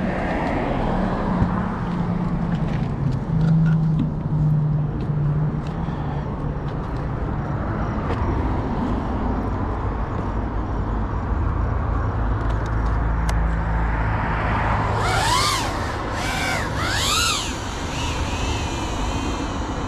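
Low steady rumble, then, about fifteen seconds in, the motors of a GEPRC Cinelog35 FPV quadcopter rev up and down three times in rising-and-falling whines. The motors then settle into a steady, slightly wavering high whine.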